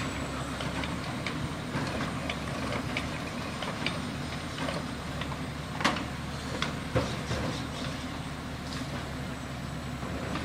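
Garbage truck's diesel engine idling, a steady low rumble, with scattered sharp clanks, the loudest about six seconds in and again a second later.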